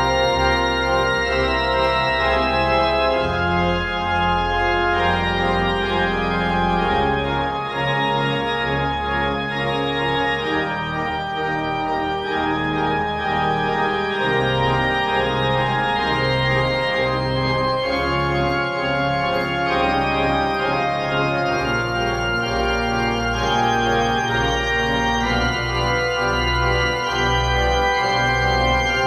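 Two-manual church organ playing full sustained chords over a deep, plodding ground bass, the bass note changing every second or two.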